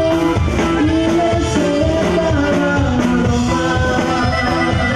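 Live Mexican regional band playing: button accordion, saxophone, acoustic guitar, electric bass and drum kit, with a steady beat and held melody notes.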